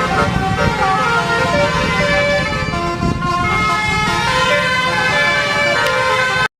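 Basuri multi-tone 'telolet' bus horn playing a melody of shifting notes over the bus engine running. It cuts off suddenly near the end.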